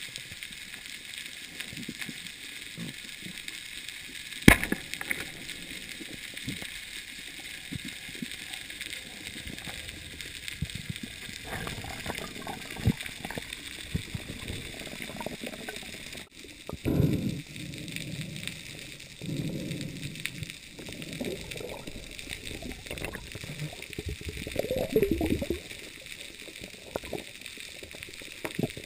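Underwater through a camera housing: a steady hiss, then a single sharp crack about four and a half seconds in as the speargun fires. In the second half, irregular low gurgling and sloshing of water.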